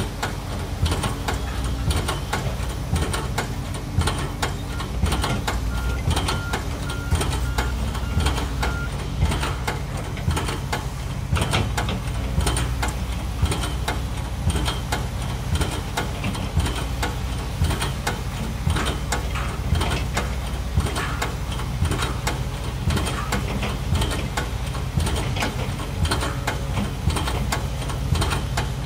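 Heavy diesel excavator and piling rig engines running steadily, with sharp knocks about once a second from the pile driving.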